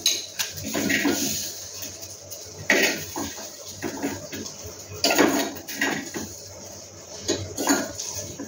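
Irregular clatter of dishes and utensils, a series of knocks and clinks with short pauses between them.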